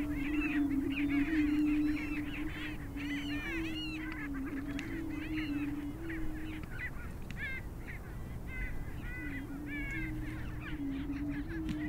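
Greater prairie-chickens calling on a booming ground: males give overlapping low, hooting booms in their courtship display, with cackles and whoops above. The booming breaks off for a moment a little past the middle, then resumes.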